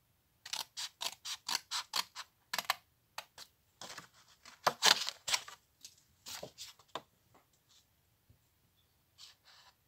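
Small scissors snipping through a sheet of card stock: a quick run of short cuts at about four a second, then more irregular runs of snips, a pause of over a second, and a few more snips near the end.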